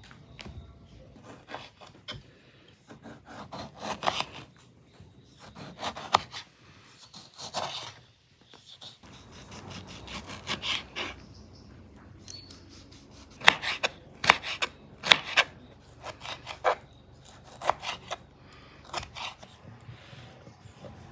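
Kitchen knife cutting tomatoes on a wooden cutting board: irregular slicing strokes, with sharper knocks as the blade hits the board, loudest about two-thirds of the way through.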